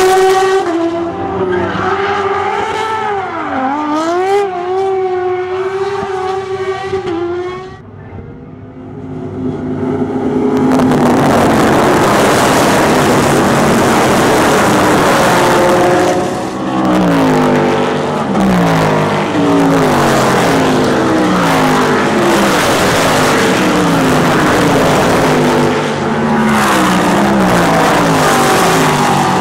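A single race-car engine held at steady high revs with a brief dip, fading away about eight seconds in. Then, from about ten seconds, a pack of open-wheel single-seater race cars accelerates loudly, their engines rising in repeated steps as they change up through the gears.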